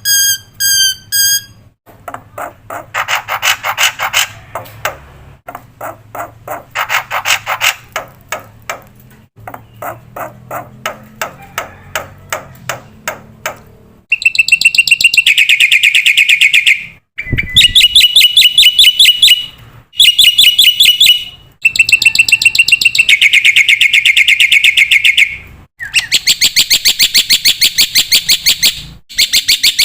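Black-winged myna (jalak putih) singing a long series of rapid, evenly repeated chirps, about ten a second, in bursts of a few seconds. Louder, shriller runs begin about halfway through.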